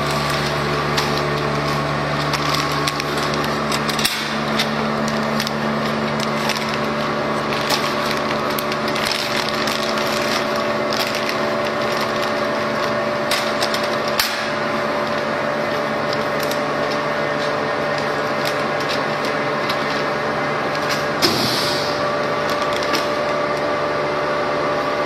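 RF 600 double-chamber vacuum packaging machine running: a steady mechanical hum with several held tones, dotted with short sharp clicks, and a brief hiss about 21 seconds in.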